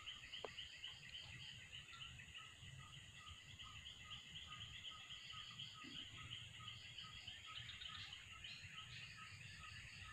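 Faint outdoor chorus of calling insects, a pulsing high buzz, with a soft repeated note about three times a second.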